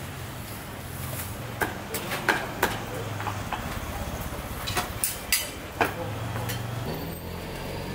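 A cleaver knocking against a thick wooden chopping block as fried pork is cut and scooped up, about seven sharp knocks in two short clusters, over a steady murmur of voices.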